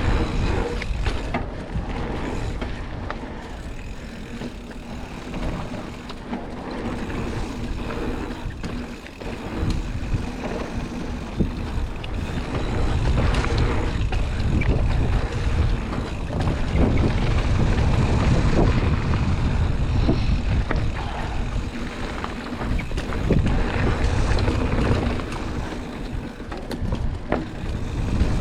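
Wind rushing over the microphone and the rumble of riding fast down a rough dirt trail, with frequent knocks and rattles from bumps and landings.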